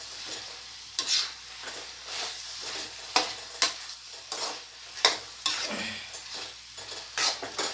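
A metal spoon scraping and clinking irregularly against a steel pan as chicken and spice masala are stirred, over a steady sizzle of frying.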